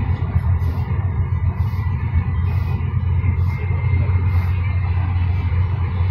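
Steady low drone of a three-axle Mercedes-Benz Travego coach driving along a highway: engine and road rumble heard from inside the cabin.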